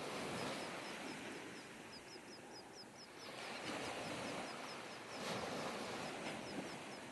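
Surf washing up on a sandy beach: an even rushing wash that swells and eases. Over it, a bird chirps rapidly, about four short high chirps a second, in two runs.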